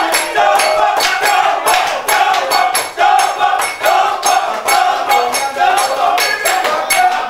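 A group of voices singing a chant together over percussion struck in a steady beat, about four strokes a second.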